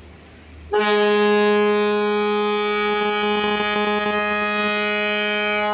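The ferry KMP Batumandi's ship's horn gives one long, steady blast of about five seconds, starting about a second in, as the ferry gets ready to leave its berth. The horn is really loud.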